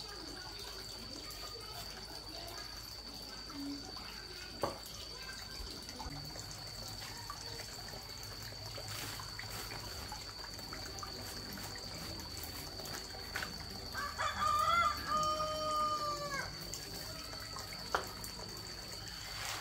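A rooster crows once near the end, a single drawn-out call of about two and a half seconds. A thin steady high-pitched tone runs throughout, and there are two short knocks, one early and one near the end.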